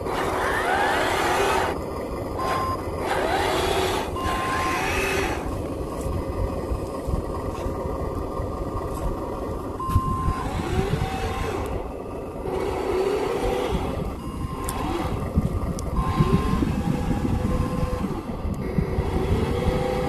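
Radio-controlled dump truck with a sound unit running: short reversing beeps now and then, and a simulated engine revving up and down several times in the second half, over the steady low rumble of the truck moving across dirt.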